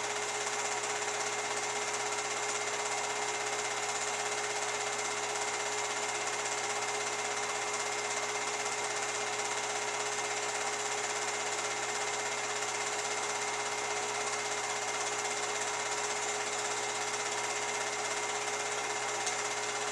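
Film projector running steadily behind a silent 8mm home movie: an unchanging mechanical whir with constant hiss and a steady hum.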